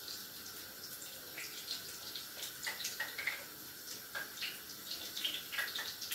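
Pieces of dough frying in hot oil in a pan: a steady sizzle with many small, irregular crackles.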